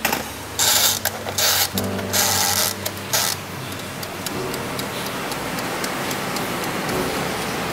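Mechanical timer knob on an air fryer being turned, a rasping whir in several bursts over the first three seconds, then the fryer's fan running steadily with light clicks from the dials as the temperature is set.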